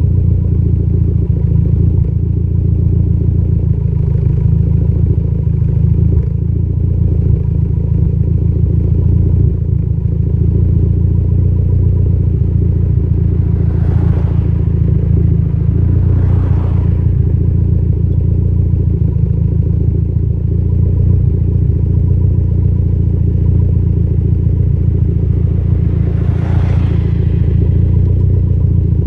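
Engine idling steadily with a slight misfire.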